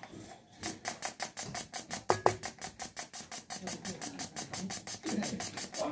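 Suzuki Alto fuel injector being pulsed on an improvised tester, clicking rapidly and evenly at about seven clicks a second as it sprays carb cleaner, starting about half a second in. A single louder knock sounds about two seconds in. The injector is opening and spraying well.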